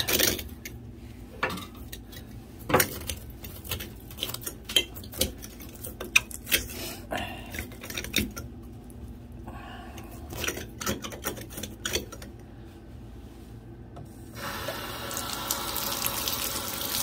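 Scattered metallic clinks and scrapes from work on the bare tub spout pipe. About fourteen seconds in, the water is turned on and runs steadily out of the open pipe, with the spout removed, to check whether the pipe itself is leaking.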